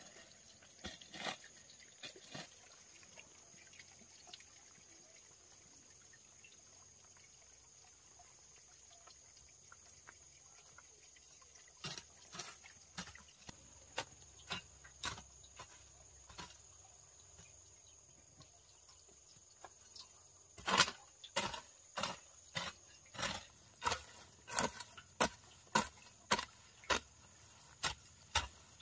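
Repeated chopping strikes: a few scattered blows at first, then a steady run of about two a second through the second half. A steady high insect drone, like crickets, sounds under them throughout.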